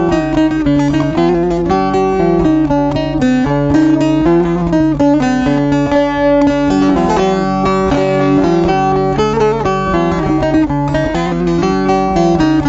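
Bağlama (long-necked Turkish saz) played solo: a quick run of plucked notes forming the instrumental introduction to a folk song, before any singing.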